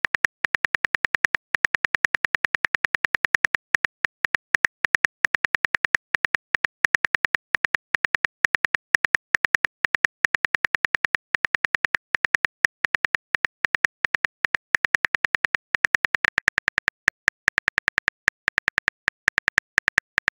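Phone keyboard click sound effect as a text message is typed out: a rapid run of sharp, even ticks, about nine a second, with brief pauses between bursts.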